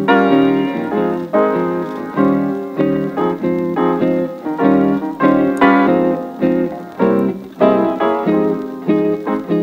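Background music led by a piano, its notes struck in a regular rhythm.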